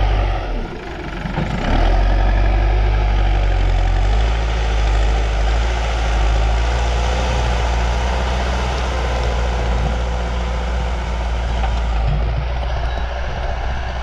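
Diesel engine of an Escorts backhoe loader running steadily as the machine pushes and levels soil with its front bucket. The engine sound drops briefly about half a second in, then comes back up.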